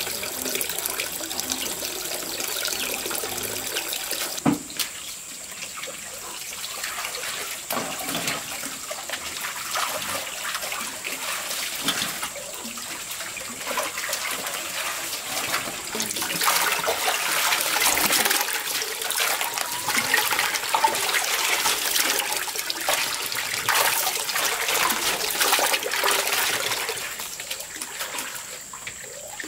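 Running, splashing water with a dense crackle of small drips, louder in the second half, with one sharp knock about four and a half seconds in.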